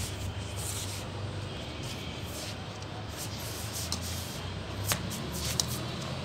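A steady low background hum, with the faint scuffing of feet and paws on a tiled floor. There are a couple of sharper scuffs about five seconds in.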